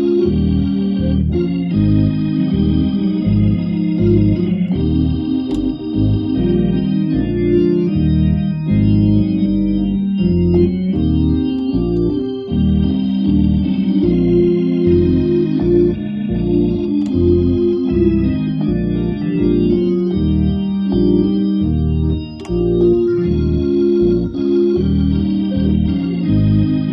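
Hammond console organ playing a slow tune in sustained chords, with both hands on the two keyboards and a bass line moving underneath.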